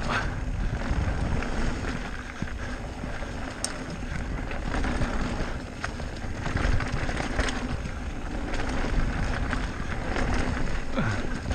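Wind buffeting the camera microphone as an e-bike rolls fast down a dirt trail, with a steady low rumble and scattered knocks and rattles from the bike over bumps.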